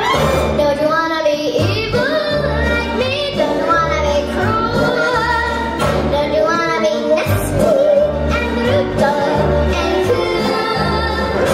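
A young girl singing a theatrical song into a microphone over backing music with a regular pulsing bass.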